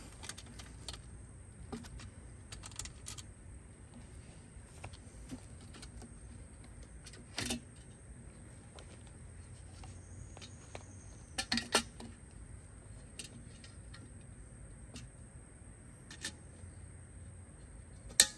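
Scattered metallic clicks and clinks from hand tools and loose metal parts being handled on an aluminium radiator, with a few louder clinks and the sharpest one near the end.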